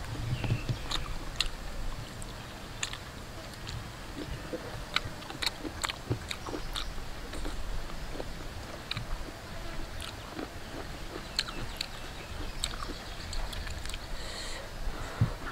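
A person biting and chewing braised chicken off the bone, with irregular sharp mouth clicks and smacks.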